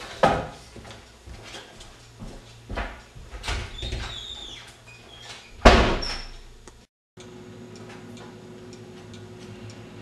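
Knocks and thuds of someone moving about, ending in a loud bang of a door shutting just before six seconds in. After a short break in the sound, a steady background hum.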